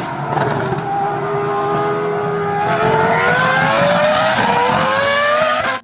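Race car engine sound effect, a steady high-revving drone whose pitch climbs gradually as if accelerating, then cuts off abruptly.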